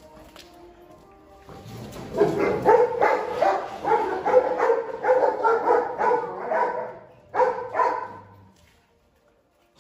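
A dog barking rapidly in a long series, about three barks a second, then pausing briefly and giving two more barks before stopping.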